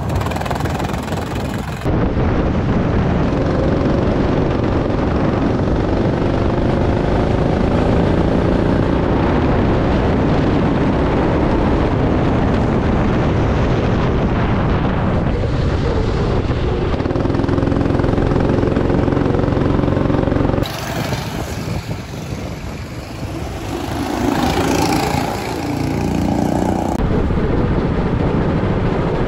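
200 cc petrol go-kart engine heard from on board the kart, revving up and down as it is driven around the track. The sound jumps abruptly twice, about two seconds in and about two-thirds of the way through.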